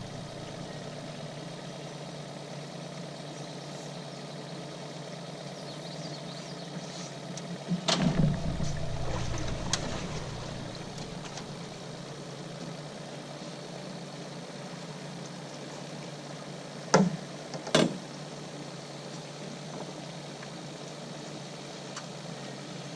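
Boat motor running steadily at low speed, with a brief louder surge about eight seconds in. Two sharp knocks come close together near the end.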